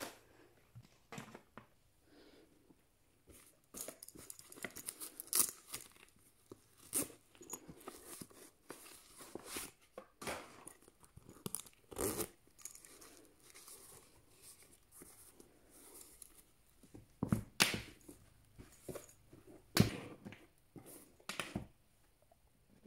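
Hands handling neoprene scuba boots and diving masks on a tabletop: rustling and scraping, with a boot's zipper worked. Several sharp knocks as items are set down, the loudest two near the end.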